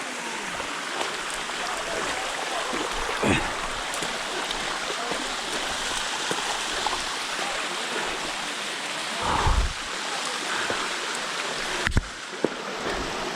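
Rushing water of a mountain waterfall stream, a steady hiss, broken by three short dull thumps.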